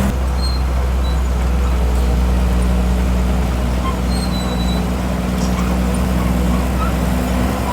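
Heavy construction machine's diesel engine running steadily at a low, even pitch.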